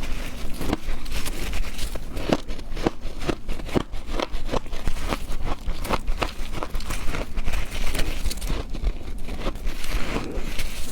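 A person biting and chewing ice close to the microphone: a rapid, irregular run of sharp crunches and crackles as the ice cracks between the teeth.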